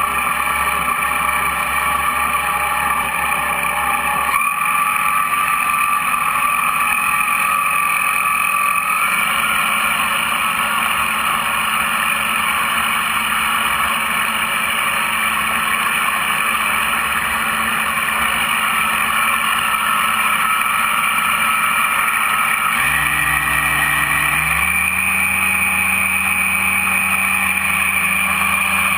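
Model boat's motor and 3D-printed jet drive running, heard close up from on board, a steady whine whose pitch steps up or down several times.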